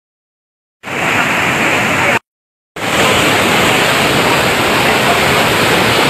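Rushing floodwater of a swollen waterfall stream: a steady, loud rush of water. It starts about a second in, cuts out briefly a little after two seconds, and comes back just before three seconds.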